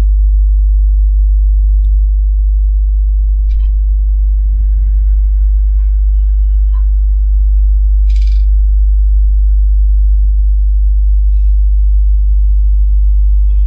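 Loud, steady low electrical hum with a stack of evenly spaced overtones, typical of mains hum on the recording. It is heard over a few faint clicks and a brief rustle as curry leaves go into the dry pan and are stirred with a wooden spatula.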